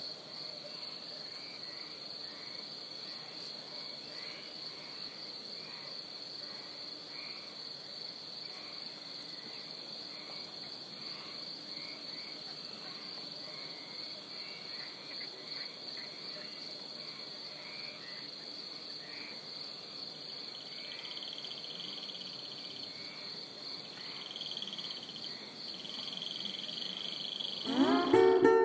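Chorus of insects and frogs: a steady high-pitched trill with short chirps repeating beneath it. Acoustic guitar music comes in near the end.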